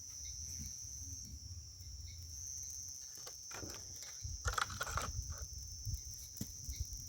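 Steady high-pitched chirring of crickets, over a low rumble, with a short cluster of crackles and clicks about four to five seconds in.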